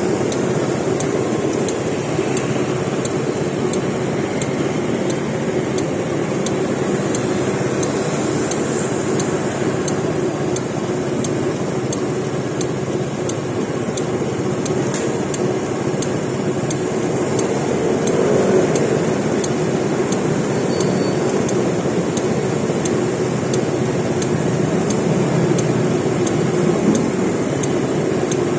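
A motor vehicle running steadily, with engine hum and road noise heard on board.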